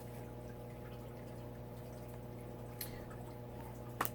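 Quiet room with a steady low electrical hum. A faint tap comes near three seconds in and a sharper click just before the end: a tarot card being handled and laid down.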